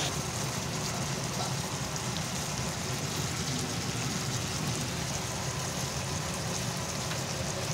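Okra (bhindi) sizzling in a hot pan, a steady frying hiss, over a low steady rumble.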